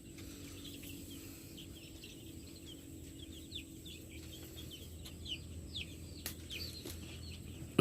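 A brood of young layer chicks peeping, many short falling cheeps overlapping one another.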